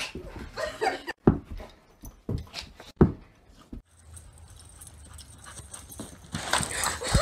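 A dog barking a few short, sharp barks, then a steady low rumble.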